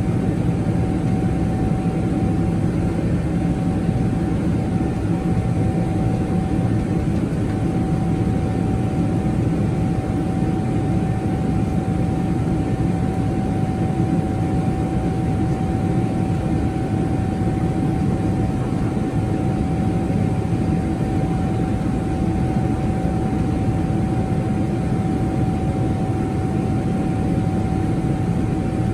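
Steady in-flight cabin noise of a Boeing 777-300ER climbing after takeoff: the even hum of its GE90 engines and rushing air, with a constant tone running through it.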